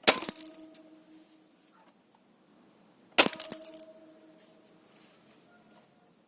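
Two shots from a Snow Wolf M24 bolt-action spring airsoft sniper rifle, about three seconds apart, with BBs striking a nail in pine wood. Each is a sharp crack followed by a short ringing tone that dies away within about half a second.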